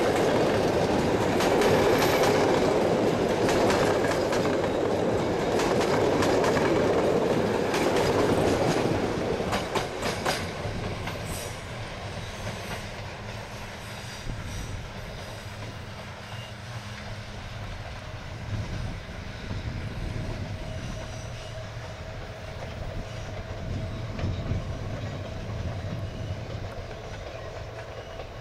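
Locomotive-hauled passenger train, an EU07 electric with its coaches, passing close by: a loud rumble with wheels clacking over rail joints for about ten seconds, then fading to a quieter, more distant rumble as it draws away. A thin steady whine runs through the later part.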